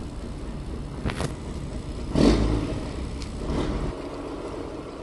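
Low, steady rumble of a boat engine running, with a sharp knock about a second in and a louder thump about two seconds in.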